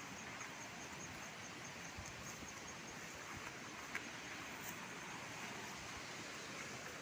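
Outdoor rural ambience: a steady hiss with faint, evenly repeated high chirps and a few small clicks.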